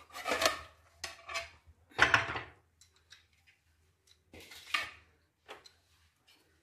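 A steel plate knocking and clinking against a frying pan as the pancake is turned out onto it: a series of separate metallic knocks, the loudest about two seconds in, then a few lighter clinks.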